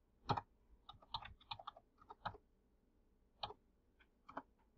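Computer keyboard being typed on: a quick, irregular run of keystrokes over the first two and a half seconds, then a few single taps.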